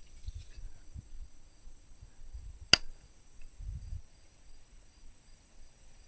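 Quiet pondside ambience: a steady high-pitched insect trill, with faint low rumbles and one sharp click near the middle.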